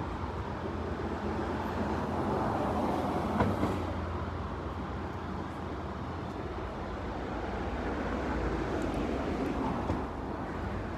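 Steady city street noise from a passing heavy vehicle, with a low drone underneath and one sharp click about three and a half seconds in.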